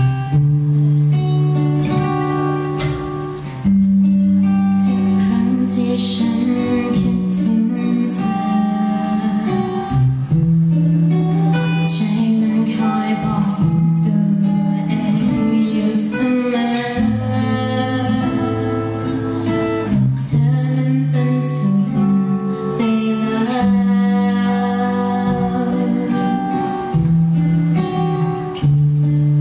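A young woman singing a Thai song into a microphone over an instrumental backing track; the accompaniment plays alone at first before her voice comes in.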